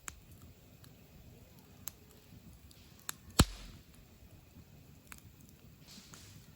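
Wood campfire crackling: a handful of sparse, sharp pops over a faint low background, the loudest pop about three and a half seconds in.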